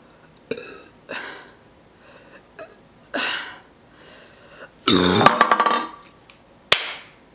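A woman's long, loud burp, brought up after chugging a kombucha, about five seconds in, with a few short breaths before it. A single sharp knock follows near the end.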